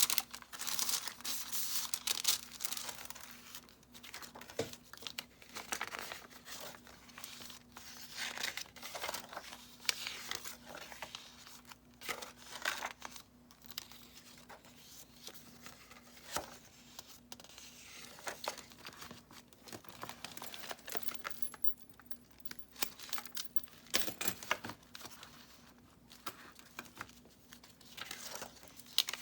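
Pages of a handmade junk journal made of mixed papers (book pages, coffee-dyed paper) being handled and turned one after another, giving irregular rustling and crinkling swishes of paper.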